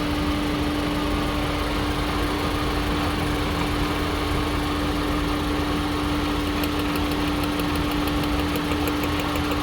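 VW Polo Vivo engine idling with a misfire on cylinder 2. About two-thirds of the way in, a rapid, regular ticking starts: the pulled cylinder-2 coil pack sparking, a sign that the coil is firing and the fault lies with the spark plug or injector.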